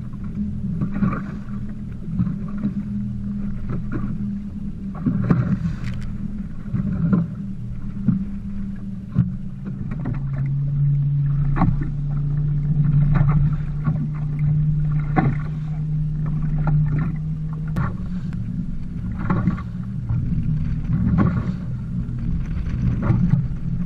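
Waves slapping against a fishing boat's hull on rough, choppy water, irregular thumps over a steady low hum. The hum grows louder for several seconds from about ten seconds in.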